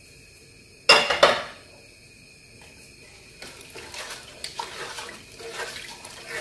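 Two sharp clatters of a glass dish about a second in, then a wooden spoon stirring chopped vegetables and liquid in a stainless steel stockpot, with irregular knocks and sloshing.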